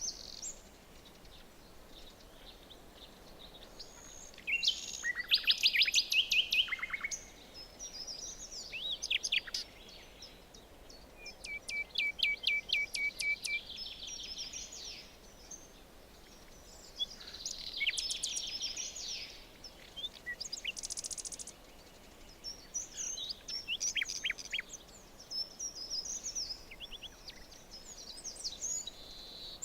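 Several songbirds singing in a forest, one phrase after another over a faint steady hiss. The loudest song comes about five seconds in, and a quick trill of rapidly repeated notes follows a few seconds later.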